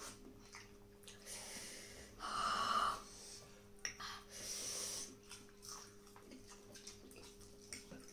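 Two breathy, hissing exhales through an open mouth, about two seconds in and again near the middle: panting against the burn of green chilli eaten with noodles. Faint clicks of cutlery on plates in between.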